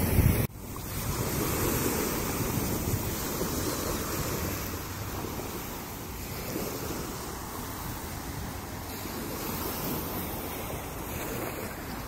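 Small sea waves breaking and washing up onto a pebble beach, with wind on the microphone. A louder rumble of wind noise cuts off abruptly about half a second in, leaving a steadier wash of surf that swells and eases.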